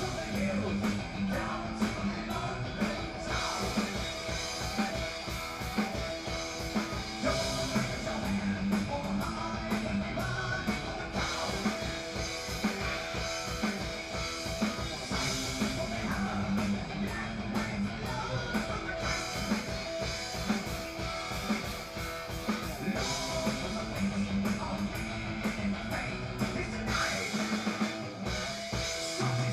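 Heavy metal band playing live: distorted electric guitar, bass and a drum kit keeping a fast, driving beat.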